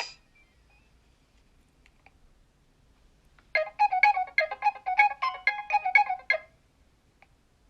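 Nokia 3100 mobile phone playing one of its built-in ringing or message alert tones: a quick run of short electronic notes lasting about three seconds, starting about three and a half seconds in after a pause.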